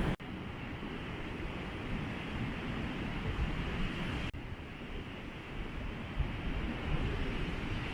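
Strong wind buffeting the microphone over ocean surf: a steady rushing noise with a heavy low rumble. It drops out for an instant twice, just after the start and about four seconds in.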